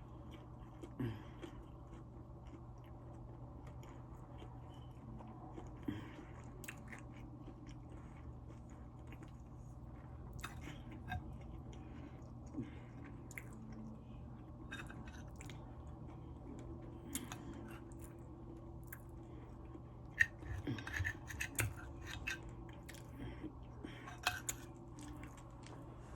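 Close-up eating sounds: chewing and biting into crispy fried chicken, with scattered crunchy crackles that come thickest near the end, over a low steady hum.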